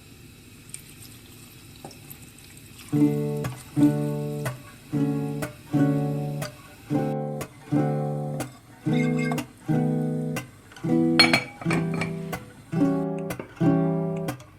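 Background music: an acoustic guitar strumming chords about once a second, starting about three seconds in after a quiet stretch.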